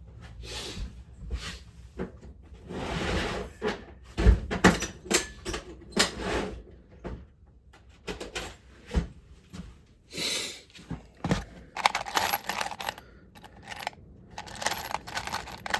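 Rummaging through loose hardware for a screw: small metal parts rattling and clinking, with scraping and several sharp knocks.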